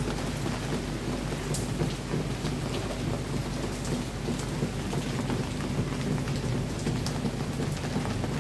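Heavy rain falling steadily, with a low steady hum underneath.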